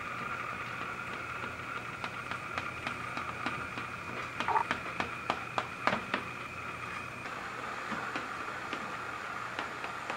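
Knife cutting through the baklava, its blade tapping the baking tray in a run of sharp clicks over a steady hum. The taps are loudest about halfway through.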